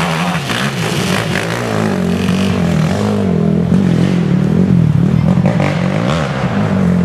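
Race ATV engines revving hard, the pitch rising and falling over and over as the quads churn through a mud hole.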